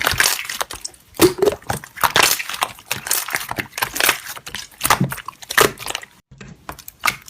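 Slime being pressed and worked by hand, giving irregular crackling and clicking pops. It dips quieter after about six seconds.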